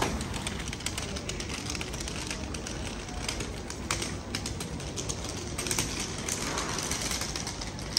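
Street market ambience: a steady background din with scattered sharp clicks and clatter.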